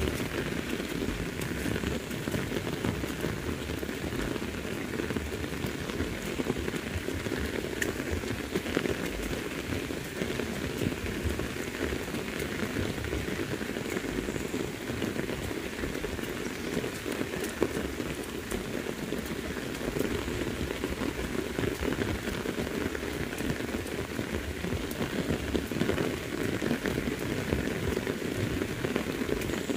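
Very heavy rain falling steadily, an even, unbroken hiss of drops.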